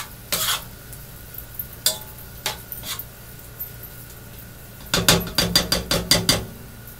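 Spoon knocking and scraping against a nonstick sauté pan as shrimp and crab meat are stirred: a few scattered clinks, then a quick run of about a dozen taps about five seconds in.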